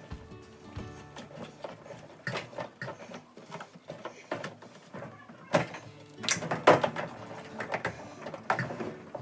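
A run of irregular clicks and knocks from parts being handled, with the loudest knocks about six to seven seconds in.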